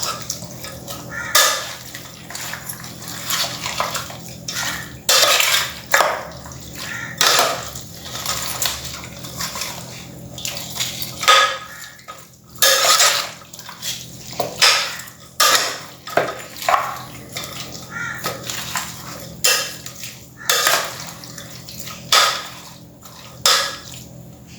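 A spoon scraping and clattering against a pan as raw pork pieces are mixed with spices, sliced onions and water, in uneven strokes about once a second. A low steady hum sits underneath.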